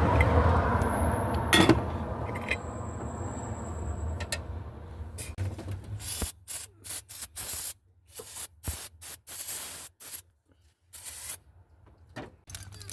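Aerosol can of starter fluid sprayed into the carburetor throat in a string of short and longer hissing bursts, a quick test of whether the engine's crank/no-start is fuel related. Before the spraying there is a steady low hum with a few sharp clicks.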